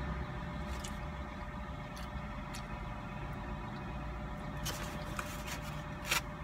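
A plastic fork clicking a few times against a takeout food container while someone eats, the sharpest click near the end, over a steady low hum.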